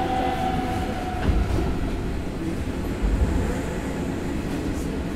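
Hanshin 9000 series electric train running, heard from inside the car. A steady motor whine dies away about a second in, leaving the rolling noise of the wheels on the rails with a couple of low thumps.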